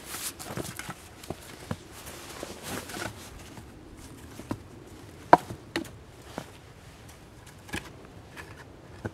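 Footsteps in snow, then scattered knocks and clicks of wood being handled as a log is set against upright wooden stakes, the sharpest knock about five seconds in.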